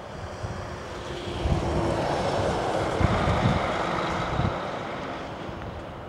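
Embraer 195-E2 airliner's geared turbofan jet engines running on the runway. The noise swells about a second and a half in, holds loudest through the middle, and eases off over the last couple of seconds.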